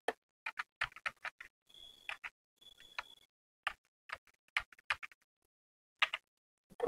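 Computer keyboard keystrokes: irregular clusters of light key clicks with short gaps between them, as code is typed and edited.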